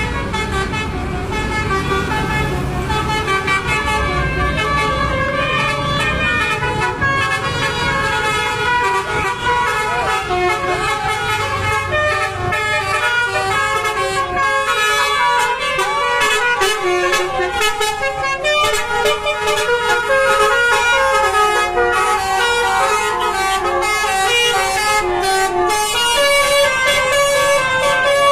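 Basuri telolet bus horn playing a continuous melody of quickly changing horn notes. A low engine rumble runs underneath in the first half.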